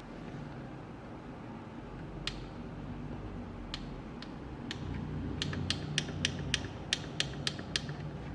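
Sharp mechanical clicks, a few scattered at first, then a quick run of about ten at roughly four a second near the end, over a low steady hum.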